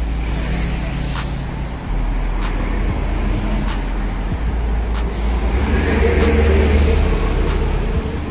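Mazda MX-5 RF's power retractable hardtop closing, its roof motors and linkage working, over a steady low hum from the car.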